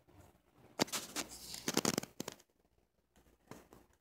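Scattered rustles and clicks from handling the recording device, loudest about two seconds in.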